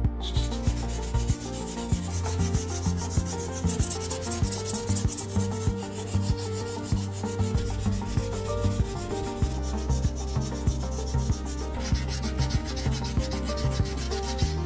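Sanding: a steady, scratchy abrasive rubbing that eases off about twelve seconds in, over background music with a steady beat.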